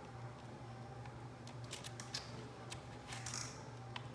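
Flathead screwdriver prying at the plastic case of a Casio fx-CG500 graphing calculator: faint scattered clicks and a short scrape of plastic parts working loose.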